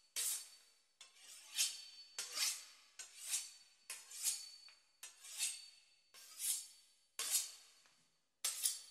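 A knife sawing through the crisp pastry crust of a beef Wellington, in rasping strokes about once a second.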